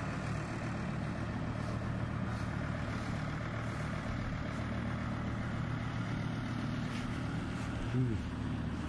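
Farm tractor engine of a tractor-drawn tourist bus running steadily at an even, low pitch.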